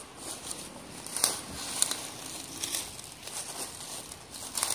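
Dry grass stems and twigs crackling and snapping underfoot as someone pushes down through brush on foot, in irregular crunches, the sharpest a little over a second in.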